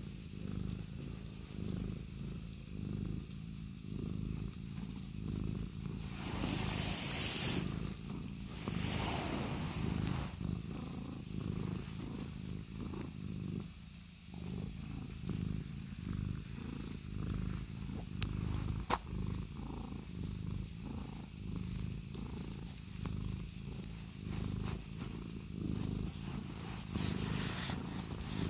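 Scottish Fold cat purring steadily, the low purr swelling and easing in a slow rhythm. Two short rushes of hiss break in partway through, and there is a single sharp click later.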